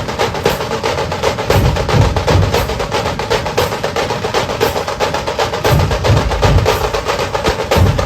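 Fast percussion music: a quick, steady clacking beat over deep drum hits.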